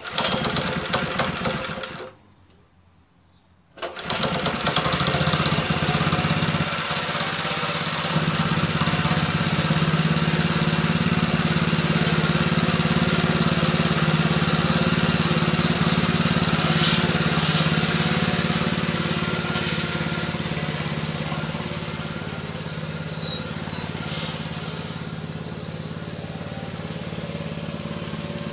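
Baja mini bike's 196 cc single-cylinder engine, fitted with a Tillotson carburetor, being pull-started: it runs for about two seconds and stops, then catches again about four seconds in and keeps running steadily.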